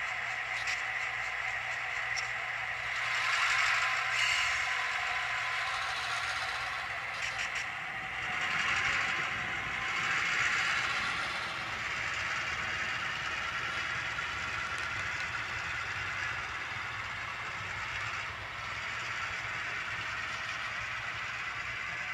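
Sound-decoder diesel engine sound from a pair of HO-scale model locomotives, an Athearn GP15-1 and an Atlas MP15 running SoundTraxx Tsunami2 decoders, played through their small onboard speakers as they run along the track. It swells a little a few seconds in and again around the middle, over a light clatter and rattle from the wheels on the rails.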